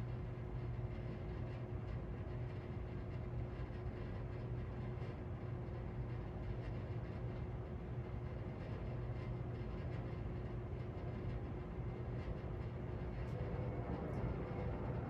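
SMC Rivera ceiling fan from 2001 running steadily on its high speed setting: a constant low motor hum over steady air noise.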